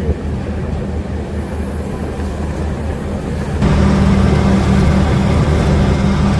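Fishing boat's engine running steadily with a low hum; a little past halfway it suddenly gets louder and brighter.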